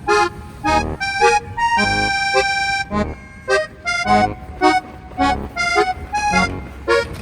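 Background music: a bouncy tune of short, evenly paced notes over a regular low bass beat.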